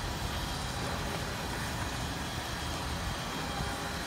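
Boat davit's winch running steadily under load as it hoists a scooter up to the flybridge.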